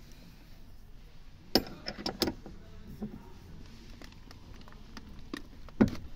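Metal clicks and clinks of a 14 mm socket wrench on a seat-belt upper anchor bolt as it is tightened into the door pillar. There are a few sharp clicks about a second and a half to two and a quarter seconds in, and the loudest one near the end.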